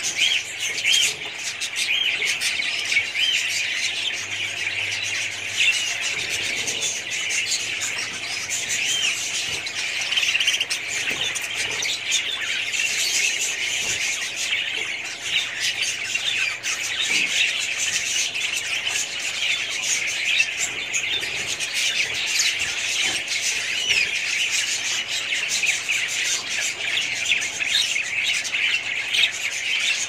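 A colony of budgerigars chirping and chattering, many short calls overlapping in a dense, unbroken chatter with occasional squawks.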